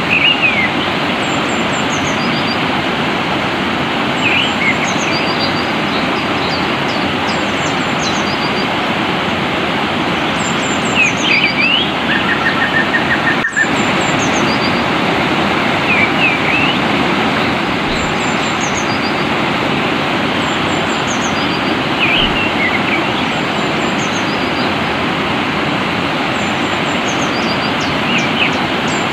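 Rushing stream water with songbirds calling over it: short sweeping chirps and high thin notes every few seconds, and a brief even trill about twelve seconds in.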